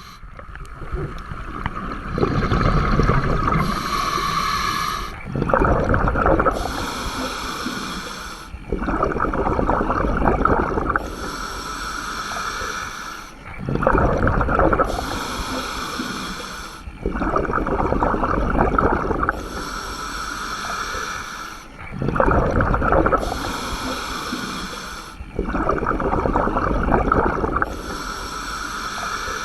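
Scuba diver breathing through a regulator underwater: hissing inhales alternate with bubbling exhales in a slow, regular rhythm, about one breath every four seconds.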